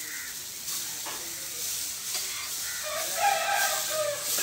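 Dosa batter sizzling on a hot iron paper-roast tawa as a ladle spreads it in circles. About three seconds in, a rooster crows for a little over a second, the loudest sound here.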